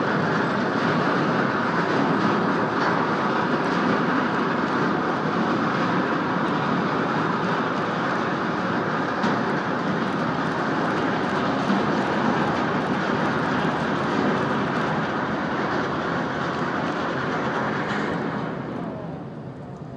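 Steady heavy rumble from a newly launched chemical tanker as its hull runs out into the water, fading away near the end as the ship slows.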